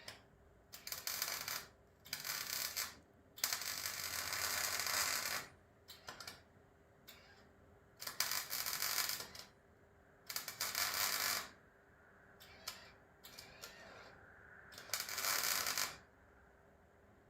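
MIG welder laying short tack or stitch welds: about six bursts of crackling, each a second or two long, with short pauses between them.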